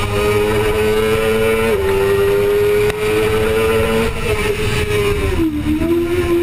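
2005 Suzuki GSX-R600's inline-four engine at high revs under full throttle. Its pitch drops for one quick upshift a little under two seconds in, then climbs again. Near the end the engine rolls off and the pitch falls in a step as the rider brakes and downshifts.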